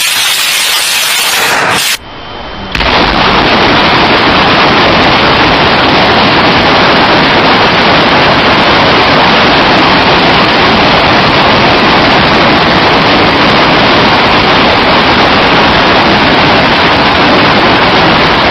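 Multiple rocket launcher firing, a loud continuous roar with no separate bangs. It drops away briefly about two seconds in, then runs on unbroken.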